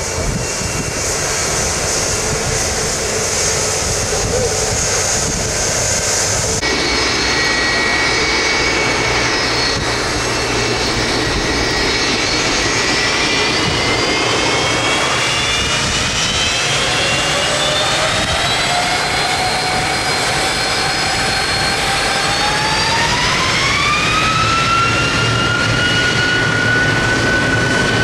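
Boeing 757-200 jet engines whining as the airliner taxis and lines up, the whine climbing gradually and then rising steeply about three-quarters of the way through as the engines spool up to takeoff power, holding a steady high tone near the end.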